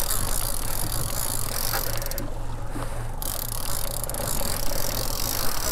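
Boat's outboard motor running steadily at low speed, with wind and water rushing past, while a fishing reel is wound in on a hooked dolphinfish.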